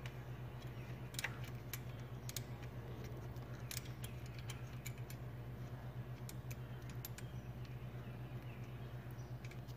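Light, scattered metallic clicks of a 10 mm socket and ratchet working loose a ground bolt on a tractor's intake manifold, a few clicks at a time at irregular spacing, over a steady low hum.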